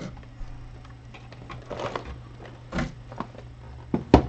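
Lego set contents being handled: plastic parts bags and pieces rustling and clicking in short bursts, with a sharp knock just before the end.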